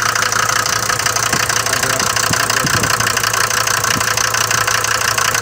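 Mercedes diesel engine idling with a fast, steady knocking clatter, loud on a cold morning start. The mechanic finds this knock heavier than the usual Mercedes diesel tick.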